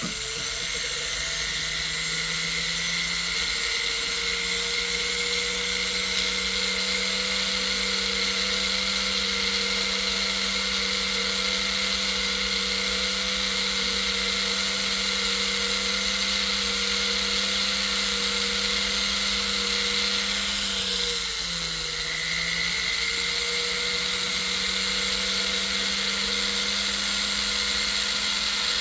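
Jeweler's rotary tool spinning a silicone polishing wheel to clean up a gold necklace end tab. The motor gives a steady whine that rises in pitch as it spins up at the start, dips in pitch briefly about 21 seconds in, then recovers.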